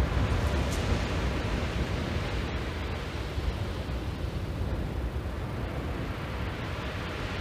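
Steady wind noise buffeting the microphone, with surf washing on the shingle beneath it.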